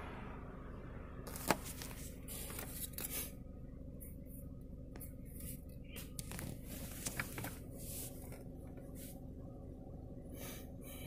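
Scattered rustles and small clicks of a phone being handled and moved around inside a car, over a steady low hum.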